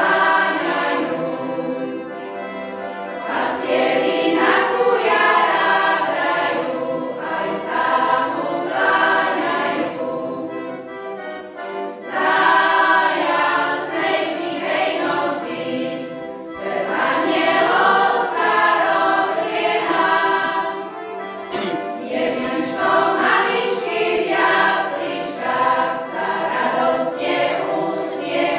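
Choir of women's and men's voices singing a Christmas carol together, the phrases swelling and easing every few seconds.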